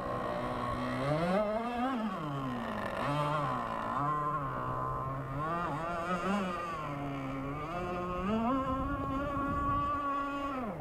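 A radio-controlled race boat's engine running hard on the water. Its pitch climbs and falls repeatedly as the throttle comes on and off through the turns. About two-thirds in it holds a steady, higher pitch on a straight run, then drops away near the end.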